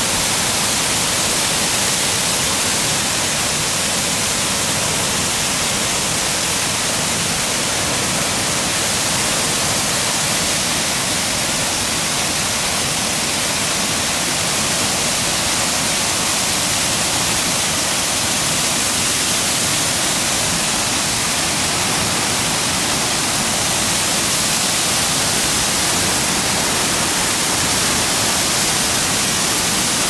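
Waterfall pouring down a rock face into a pool: a steady, hissing rush of falling water.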